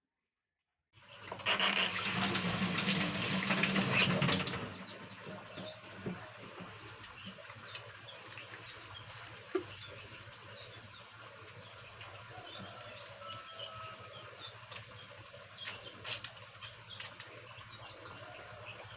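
Water running from a tap for about three and a half seconds, then shut off. A quieter background follows, with a low hum and faint scattered ticks and chirps.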